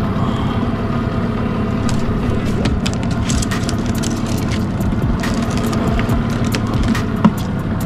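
Outboard motor running steadily, with a scatter of light sharp ticks over it from about two seconds in.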